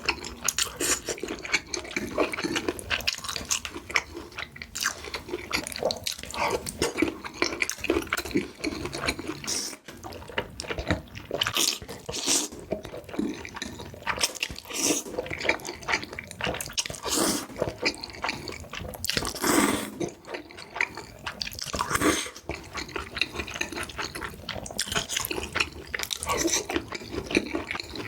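A person eating black bean noodles: wet chewing and mouth clicks throughout, broken by several longer slurps.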